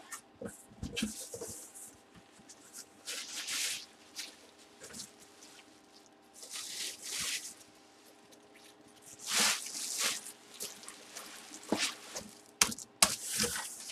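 Handling noise: short bursts of rustling or crinkling about five times, with a few light knocks and clicks, over a faint steady hum.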